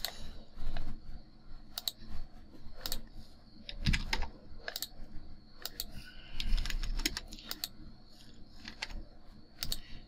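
Computer keyboard typing and mouse clicks: short sharp keystrokes at irregular spacing as numeric values are entered.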